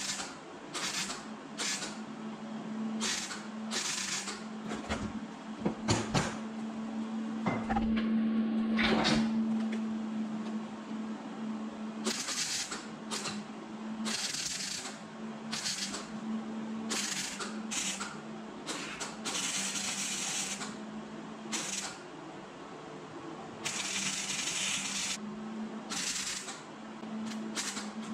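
MIG welder tack-welding thin muffler sheet steel at low amps and high wire speed: a string of short bursts of arc crackle with pauses between, a few of them held longer, over a steady low hum. Short tacks like these keep the thin metal from burning through.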